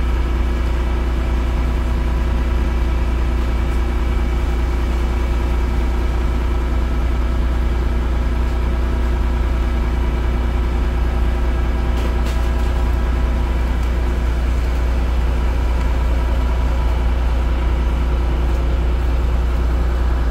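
An engine running steadily at a constant speed: a deep, even drone that does not change.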